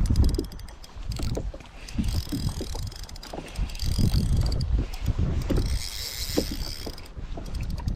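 Wind buffeting the microphone in uneven gusts, with water slapping against a boat hull and scattered small clicks.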